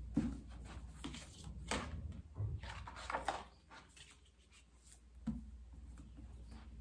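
Books being handled: a scatter of soft knocks and sliding rustles of book covers as hardcover books are picked up, turned over and moved, with a quieter stretch about four seconds in.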